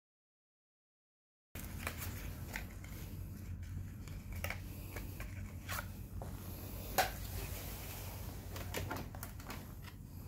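Complete silence for about a second and a half, then workshop room tone with a steady low hum. Small scattered clicks and taps come from hands handling a plastic flasher relay and its rubber holder, with one sharper click about seven seconds in.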